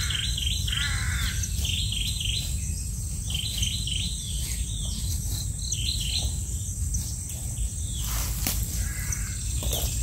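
A forest bird calling, short chirps repeated in little bunches about once a second over a thin, steady, high insect drone. Near the end come a few rustling footsteps.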